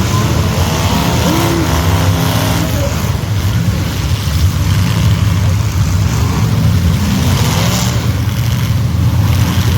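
Demolition derby cars' engines running and revving loudly, with continuous engine noise throughout.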